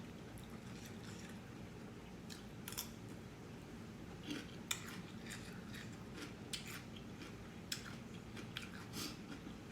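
Faint, irregular wet clicks and smacks of someone chewing and working food in the mouth at close range.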